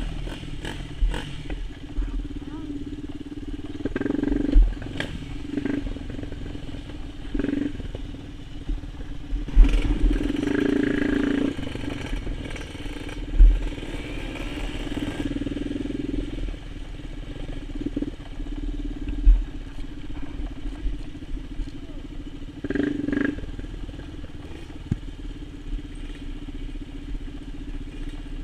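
Sport quad ATV's engine running as it rides a rough dirt trail, the throttle rising and easing, with several sharp knocks and rattles from the bumps.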